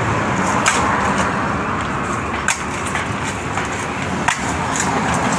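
Shovels and a long-handled digging tool striking into soil: a handful of sharp, irregularly spaced knocks over a steady background hiss.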